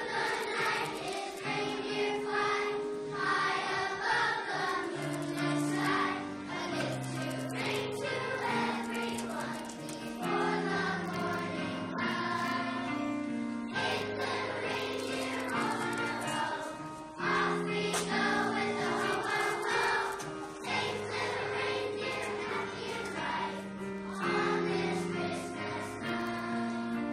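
Children's choir singing a song in unison over an instrumental accompaniment with a stepping bass line.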